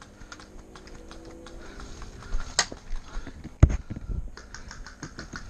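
A sharp click, then a heavy knock as the player's gear bumps the wooden fence, followed by a run of quick light ticks, about five a second, during airsoft play.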